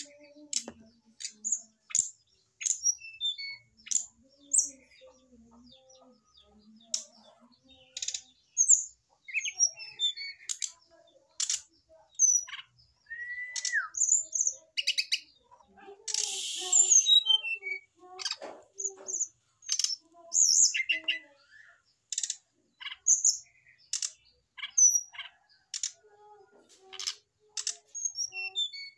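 Brown-chested jungle flycatcher calling: a loose run of short, sharp, high chirps and clicks at irregular intervals, with a short slurred whistle about halfway and a brief harsh rasping burst a few seconds after it.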